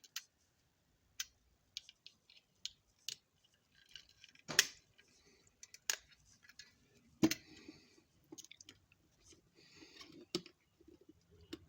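Small plastic model-kit parts being handled and squeezed into place: scattered light clicks and rustling, with two sharper clicks, one near the middle and one a few seconds later.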